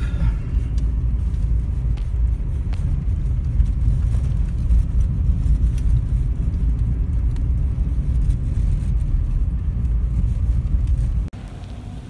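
Car driving on a packed-snow winter road, heard from inside the cabin: a steady low rumble of engine and tyres. The sound drops suddenly to a quieter level near the end.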